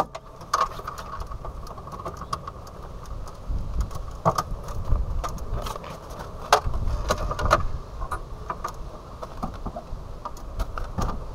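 Scattered clicks, knocks and rattles as hands work loose plastic and metal body parts at a pickup's front end, shimming a slightly bent fender, over a steady hum.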